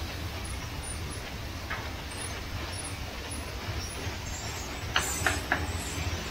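Steady low rumble at a glass-bead forming station where gas torches heat crystal glass rods. Three sharp clinks come close together about five seconds in.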